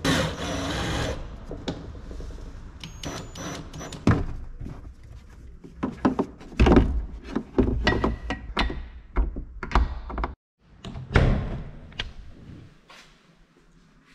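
Irregular knocks, clunks and clicks, like parts being handled and closed, with a short burst of noise right at the start and quieter sound near the end.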